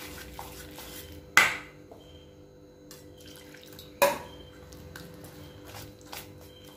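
Wire whisk beating a wet wheat-flour and egg batter in a stainless steel bowl, scraping and clicking against the sides. Two sharp clanks of the whisk on the steel bowl ring out, about a second and a half in and again about four seconds in.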